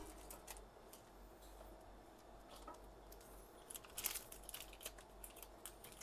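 Near silence with a few faint, light clicks and taps of PC parts and cables being handled, most of them about four seconds in.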